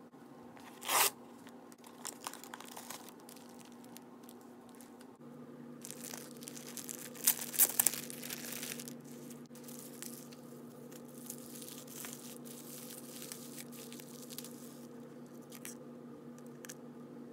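Kraft paper mailer torn open with a short rip about a second in, then a plastic bubble-wrap pouch crinkling and rustling as it is handled and opened, loudest about seven to eight seconds in, with smaller rustles and handling clicks after that.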